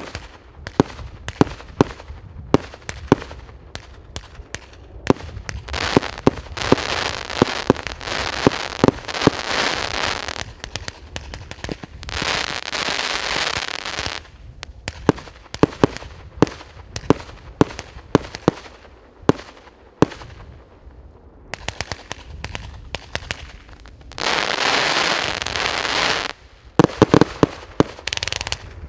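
Piroff 'Pyroman' 100-shot, 1-inch consumer fireworks cake firing: a rapid run of sharp launch thumps and burst bangs, with long stretches of dense crackling from the crackle-effect stars. There is a short lull about two-thirds of the way through, and then the firing and crackling pick up again.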